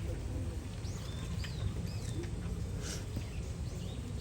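Small birds chirping over and over in short, hooked calls, above a steady low background rumble.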